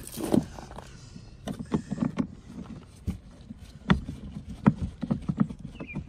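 A hand screwdriver driving the door-panel screw inside the pull-handle pocket of a car door, heard as a run of irregular clicks and light knocks, some in quick clusters.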